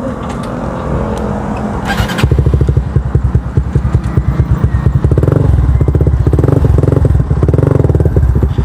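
Kawasaki NS150 motorcycle engine running through an aftermarket Akrapovic exhaust for a sound check: quieter at first, it turns loud and pulsing about two seconds in, then gets a few short throttle blips in the second half.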